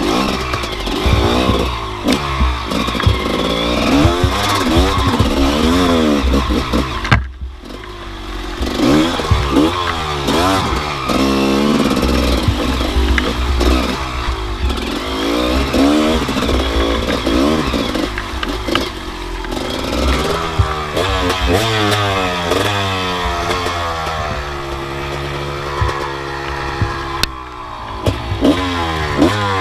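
2003 Gas Gas EC 250 two-stroke dirt bike engine revving up and down repeatedly as it is ridden over rough, muddy ground, with short knocks from the bumps. It holds a steadier throttle for a few seconds near the end. The sound drops out briefly about seven seconds in.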